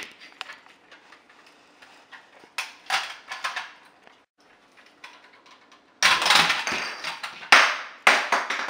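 Plastic toy car being handled and pried at on a table to pull its wheels off: light clicks and scraping, then three loud, sharp clacks in the last few seconds.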